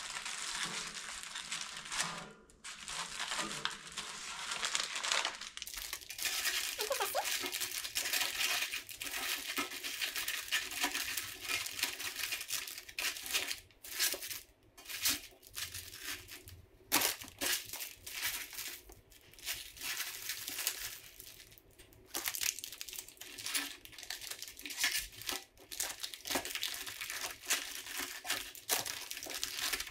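Plastic snack wrappers crinkling and rustling as packets of chips and candy are handled and set into a small metal tiered tray, with many short clicks and rustles throughout.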